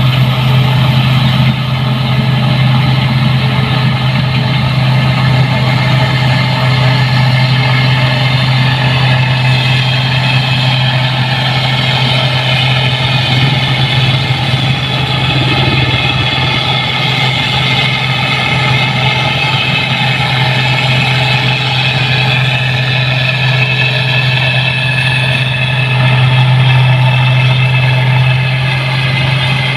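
New Holland 8060 combine harvester running steadily: a constant engine drone with a strong deep hum and machinery whir over it, swelling slightly a few seconds before the end.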